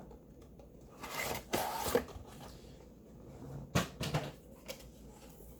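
Handling noise as a cardboard display backdrop is pulled out: about a second of rustling a second in, then a few light knocks and taps.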